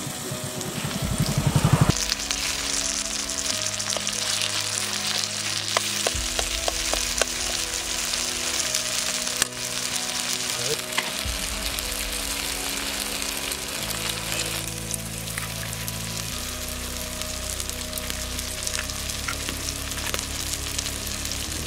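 Chopped brinjals, onions, tomatoes and green chillies sizzling steadily in a large aluminium kadai, beginning about two seconds in, with a metal spoon clicking and scraping against the pan as the vegetables are stirred.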